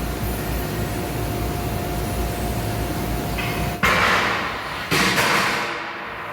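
Tube laser cutting machine running with a steady hum and a thin steady tone. About four seconds in, the tone stops and two sudden loud hissing rushes come about a second apart, each fading away.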